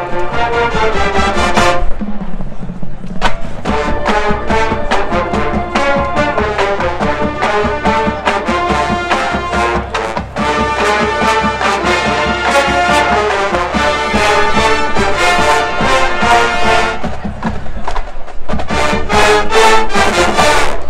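College marching band playing a halftime show: massed brass with drumline hits throughout. About three-quarters through, the sound thins briefly before the full band comes back in.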